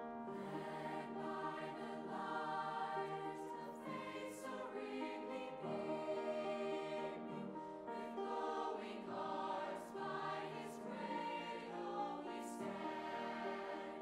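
Mixed high school choir of boys and girls singing in harmony, holding sustained chords, with a few crisp "s" consonants cutting through.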